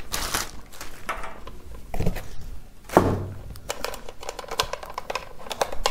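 Handling noise: light clicks, knocks and rustles of a plastic steam inhaler and its power cord being turned over in the hands.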